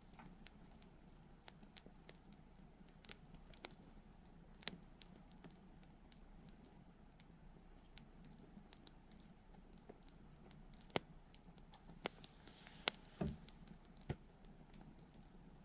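Wood bonfire crackling faintly: irregular sharp pops and snaps over a low, steady flame noise, with a few louder snaps near the end.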